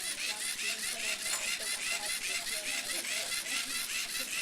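A small classroom robot's electric drive motors and gears running, with a regular clicking about four times a second.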